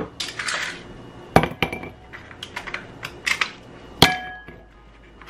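Ice cubes dropped by hand into a stemmed glass wine glass, clinking against it several times. The loudest clink, about four seconds in, leaves the glass ringing briefly, and there is short rustling between the clinks.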